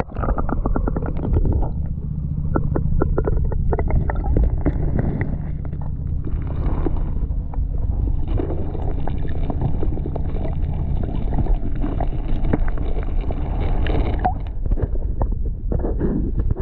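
Water splashing and sloshing close to the microphone, with irregular knocks and wind buffeting, over a steady low drone.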